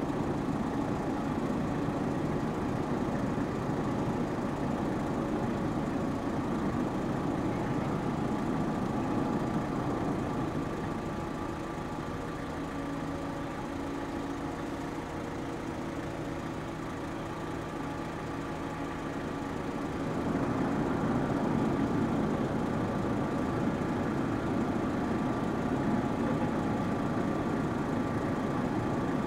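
The ro-ro passenger ferry Suzuran's machinery running with a steady low rumble and several held hum tones as the ship manoeuvres slowly alongside the berth. The rumble eases about ten seconds in, letting the separate hum tones stand out, and swells again about twenty seconds in.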